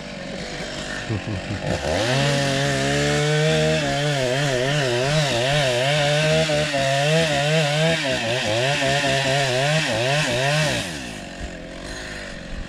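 A power saw speeds up about two seconds in and cuts timber for roughly nine seconds, its pitch wavering as the cut loads it, then winds down near the end.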